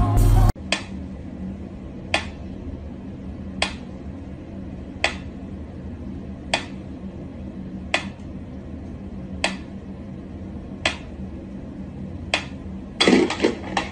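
Mechanical pendulum metronome ticking slowly and evenly, about one tick every second and a half, nine ticks in all. A snatch of music cuts off about half a second in, and a brief louder noise comes near the end.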